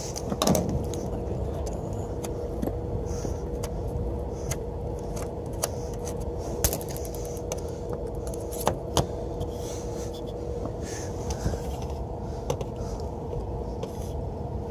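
Metal hand tools clinking and scraping as they are handled and set out, with scattered sharp clicks over a steady low hum that carries a faint constant tone.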